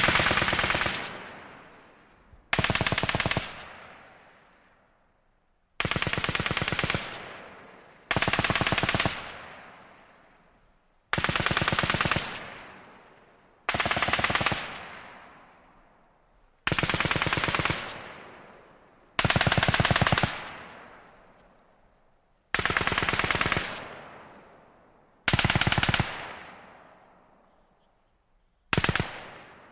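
Machine gun firing short bursts of rapid shots, about eleven in all, each lasting around a second and followed by a long fading echo before the next burst starts.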